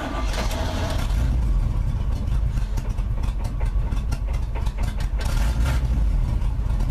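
The 1978 Chevy K20's GM V8 engine starts and runs at idle with a lopey, uneven beat. The owner says it sounds like it's camming and guesses at dirt in the carburetor.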